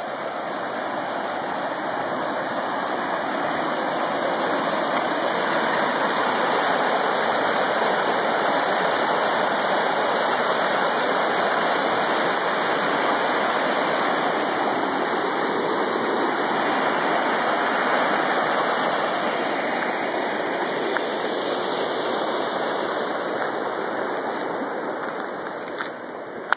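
Fast water rushing and churning white through a narrow rocky channel under a bridge: a loud, steady roar that falls away suddenly near the end.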